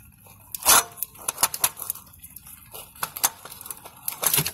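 Irregular metallic clinks and knocks of hand tools and parts being handled in a car's engine bay, the loudest about a second in and a quick cluster near the end.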